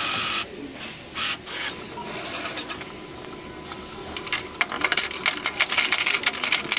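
Self-checkout machine's mechanisms whirring in short bursts, then a rapid clatter of clicks over the last few seconds as the coin dispenser drops change into the coin cup.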